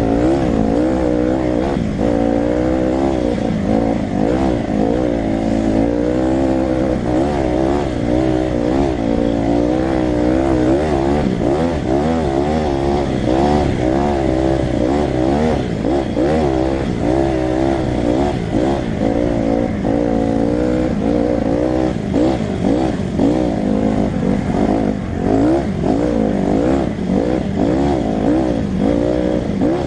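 Honda CRF150R dirt bike's single-cylinder four-stroke engine, heard from on board while riding a trail. Its pitch rises and falls constantly with the throttle and gear changes.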